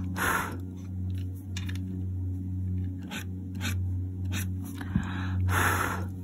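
Faber-Castell Polychromos coloured pencil scratching across hot-pressed watercolour paper in short strokes, with two longer strokes at the start and near the end.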